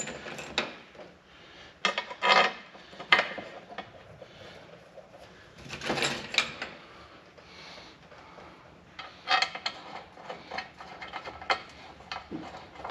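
Irregular metallic clinks, knocks and scrapes of engine parts and bolts being handled while the aftercooler cover is fitted on a Caterpillar 3406B diesel.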